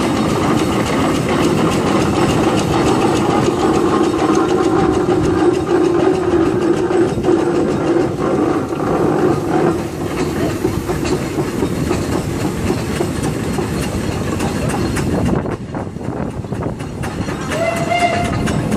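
Steam traction engine and steam rollers passing slowly on a road: a steady mechanical rumble and clatter from the engines and their iron-rimmed wheels. It is loudest as the first engine goes by and drops about ten seconds in. A short high tone sounds near the end.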